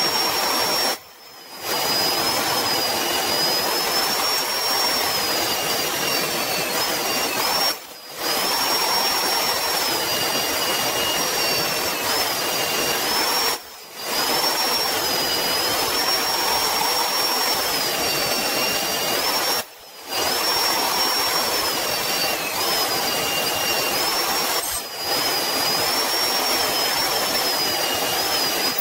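Portable bandsaw mounted in a stand, running and cutting a steel knife blank: a steady motor whine with a high whistle that sags in pitch and recovers as the blade is loaded. The sound breaks off for a moment four times, about six seconds apart.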